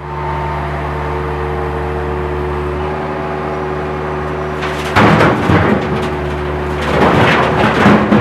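An engine running steadily while broken concrete slabs are tipped from a skid-steer loader's bucket into a dump truck's steel bed, crashing and rattling about five seconds in and again from about seven seconds.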